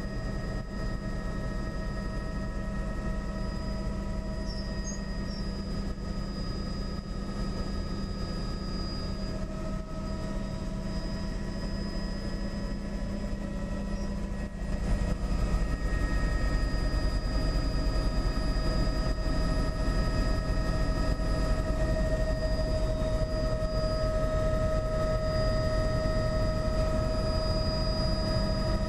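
Helicopter in flight heard from inside the cabin: a steady rotor and engine drone with several steady whining tones over it, growing louder about halfway through.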